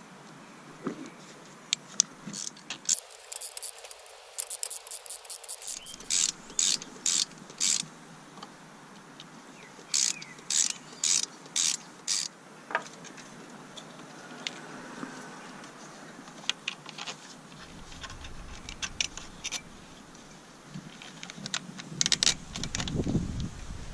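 Hand socket ratchet clicking in short runs of strokes, about two strokes a second at times, with pauses between runs.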